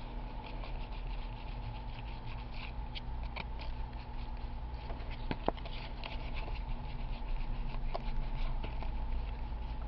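Football trading cards being handled and flipped through, a run of small irregular ticks and scraping as cards slide over one another, over a steady low hum.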